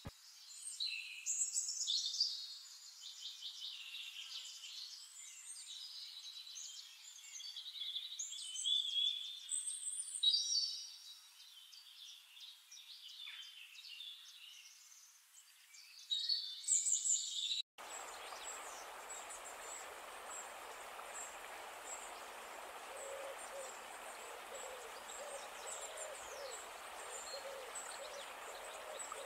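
Garden birds singing: busy high chirps and trills for the first eighteen seconds or so. After a sudden cut, a steady hiss with repeated low hooting calls and faint high notes.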